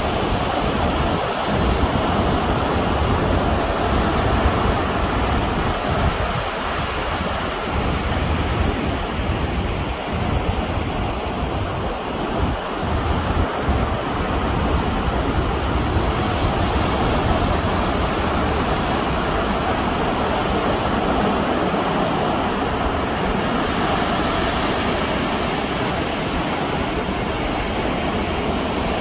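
Wind buffeting the microphone in uneven gusts over the steady rush of ocean surf.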